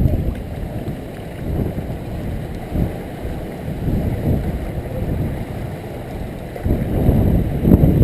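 Hurricane-force wind buffeting the microphone: a gusting low rumble that swells and eases, growing stronger near the end.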